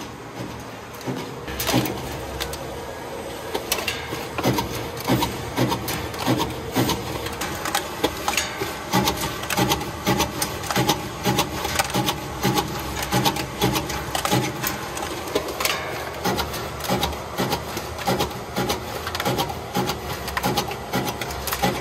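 Aerocut X paper cutter/slitter/creaser running through sheets of postcards: a steady motor hum under repeated sharp clacks from its cutting mechanism. The clacks settle into a regular beat of about two a second.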